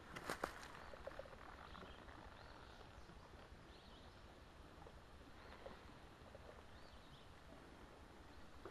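Near silence: faint outdoor woodland ambience with a few faint, high bird chirps. A couple of footsteps on the ground come in the first half-second.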